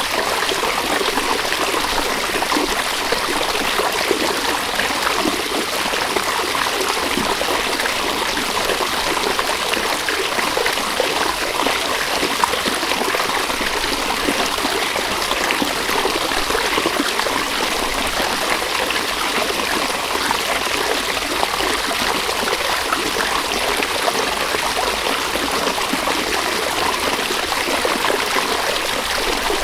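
A river running: steady rushing and burbling of flowing water, with fine trickling and splashing detail throughout.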